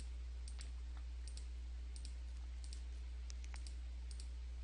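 Faint, irregular clicks from a computer mouse, about a dozen, over a steady low electrical hum.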